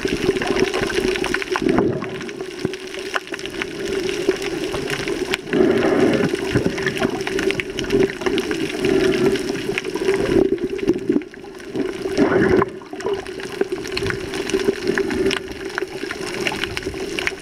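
Muffled water noise around a camera held underwater: a steady rush and slosh that swells louder twice.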